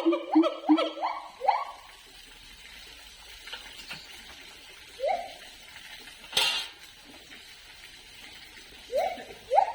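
Siamang gibbon calling: a fast run of short rising whoops that stops about a second and a half in, a single whoop midway, and the whoops starting up again near the end. A sharp click sounds once shortly after the midway whoop.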